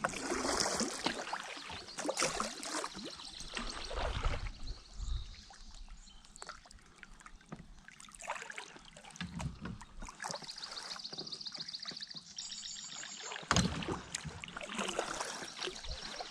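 A small fishing boat being manoeuvred out of the current: water splashing and sloshing with irregular knocks against the hull. About ten seconds in comes a fast run of fine ticking, then a sharp, loud knock a few seconds later.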